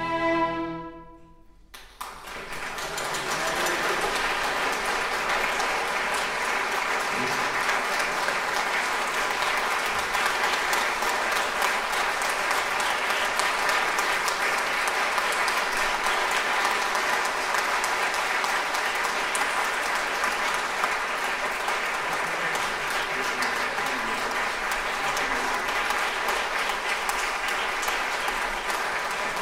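A concert audience applauding steadily. The applause breaks out about two seconds in, after the last chord of the flutes and string orchestra has rung away.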